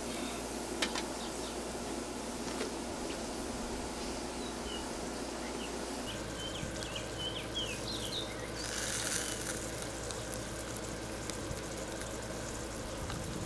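Hamburger patties sizzling on the hot steel plate of a small charcoal grill, a steady hiss with faint crackles. A bird chirps several times in the middle, and a short louder rush of noise comes about nine seconds in.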